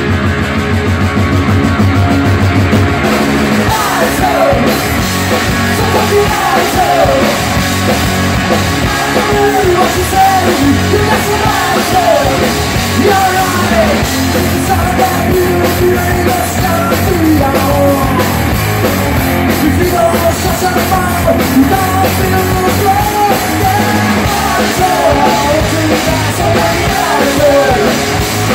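Live rock band playing loud: two electric guitars over a drum kit, with a melodic line winding over the top.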